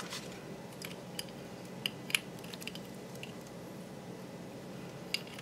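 Small, sharp plastic clicks and taps, about eight scattered through, as a plastic fashion doll and its small accessories are handled, over a faint steady hum.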